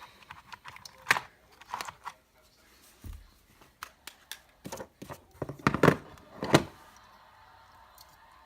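Irregular clicks and knocks of small hard objects being handled. The loudest come about a second in and in a cluster around six seconds in.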